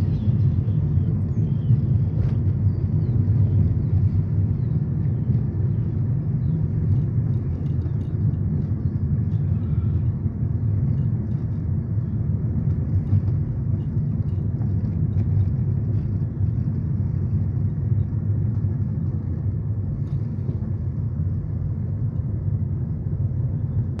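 Steady low rumble of a car driving, heard from inside the cabin: tyre and road noise with the engine underneath.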